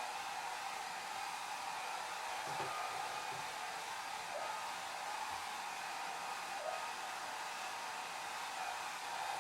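Hair dryer running steadily: an even rush of blown air, brightest in the upper range, with a faint steady whine on top.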